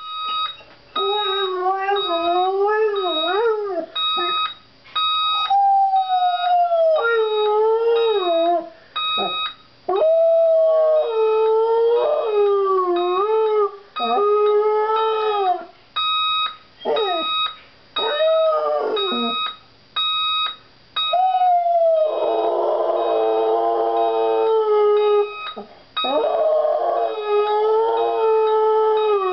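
A dog howling in long, wavering howls, one after another with short breaks, set off by an alarm clock that keeps beeping in quick high-pitched runs throughout.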